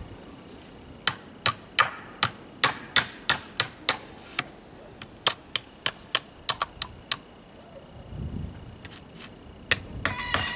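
A run of sharp taps, two to three a second for about six seconds, then a few more, from hand work on a pallet-wood chicken coop. Near the end a rooster starts crowing.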